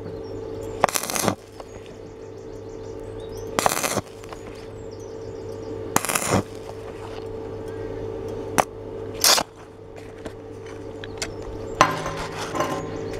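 Stick-welding arc struck in short bursts on thin 2.2 mm steel, building up weld to fill a large hole: each arc crackles for about half a second, about six times, with pauses between. A steady low hum runs underneath.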